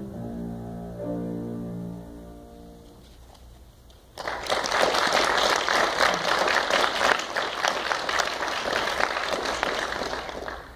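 Piano and double bass play their closing notes, which ring out and fade over the first few seconds. About four seconds in, the audience breaks into applause, a dense patter of clapping that lasts about six seconds and stops near the end.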